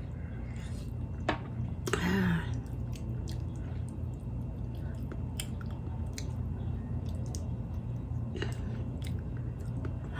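Close-up chewing of food, with scattered small wet clicks of the mouth and a louder bite about two seconds in.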